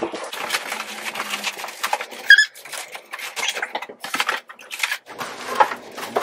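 Large cardboard box being opened by hand: continual rustling, scraping and crackling of the cardboard, with a short squeak about two seconds in.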